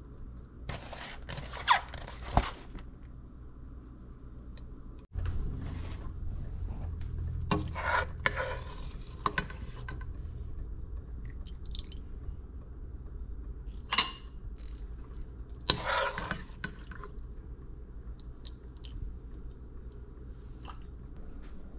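Kitchen handling sounds: a plastic ladle scraping and knocking in a stainless steel pot as soup is stirred and served, a few short scrapes and clatters with one sharp knock about fourteen seconds in, over a steady low hum that cuts out briefly about five seconds in and comes back louder.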